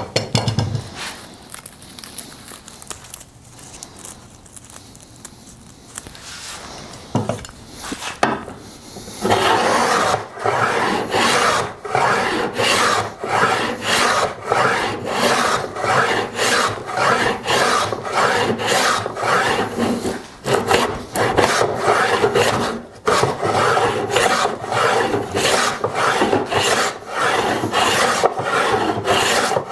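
A hand tool working wood in steady back-and-forth strokes, about two a second. The strokes start about nine seconds in, after quieter, scattered ones, and stop briefly twice.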